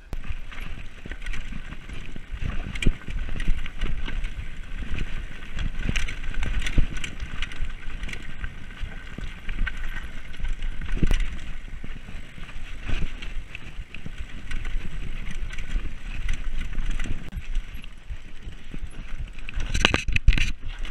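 Mountain bike riding down a dirt and stone singletrack: tyres rolling over the rough ground, with frequent irregular knocks and rattles from the bike over bumps, a louder cluster of them near the end.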